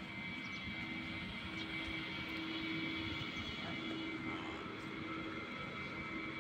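Steady machine drone with a constant hum.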